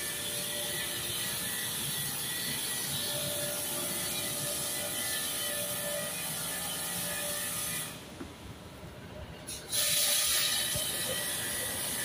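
Pressure washer running, its jet hissing as it sprays the front cover and grille of a window-type air conditioner. About eight seconds in the spray and the pump stop for nearly two seconds, then start again.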